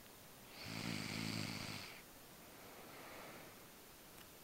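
A sleeping woman snoring: one loud snore starts about half a second in and lasts about a second and a half, followed by a much fainter breath.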